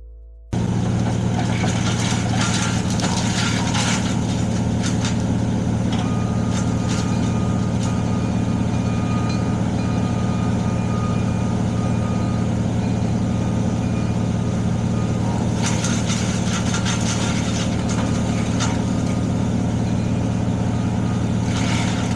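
A heavy engine running steadily at a constant speed, with a thin high whine for several seconds midway. Music fades out just before the engine sound cuts in.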